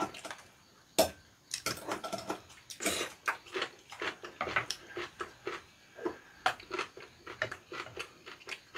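Close-miked chewing and crunching of food, a quick irregular run of small crunches and mouth clicks, with one sharp click about a second in.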